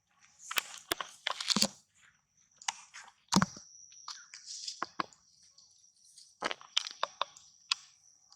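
A string of irregular sharp crunches and cracks, over a faint steady high tone.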